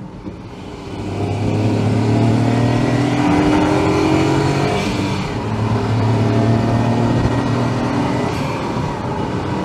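Honda S660's small mid-mounted turbocharged three-cylinder engine pulling under acceleration, heard from inside the cabin, louder over the first two seconds. Its note breaks briefly about halfway through, as at a gear change, then carries on.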